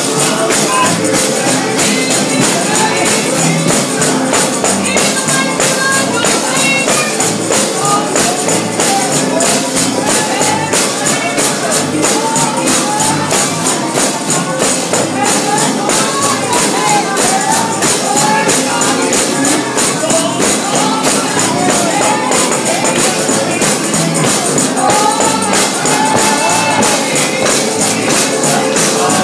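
Live gospel music: a tambourine jingling and struck in a steady, driving beat over singing voices.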